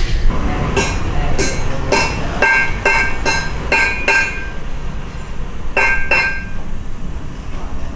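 Metal striking metal with a bright ring: about eight quick clinks in the first few seconds, then two more a little later. Steady low noise runs underneath.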